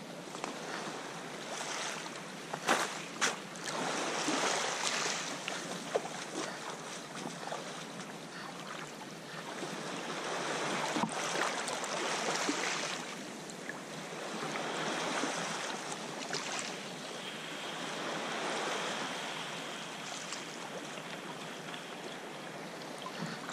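Ocean swell washing and surging against granite cliffs, the water sound swelling and easing every few seconds, with a few sharp splashes.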